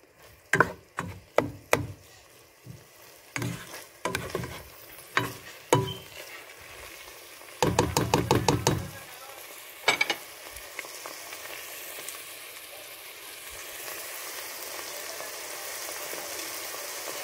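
Ground beef with diced carrots and bell pepper sizzling in a nonstick pot while a cooking spoon scrapes and knocks against the pan in stirring strokes, with a quick run of strokes about eight seconds in. After about ten seconds the stirring stops and a steady sizzle remains, growing slightly louder.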